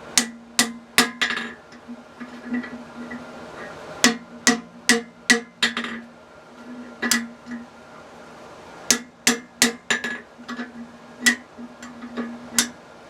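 Hand hammer striking a steel holdfast, sharp ringing blows in short runs of three to five with pauses between, over a steady low hum.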